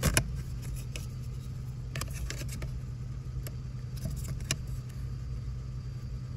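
Tata Nexon's engine idling, a steady low hum inside the cabin. Sharp plastic clicks and taps come as a plastic dial mount is handled and pressed onto the steering wheel: the loudest right at the start, and a few more around two and four and a half seconds in.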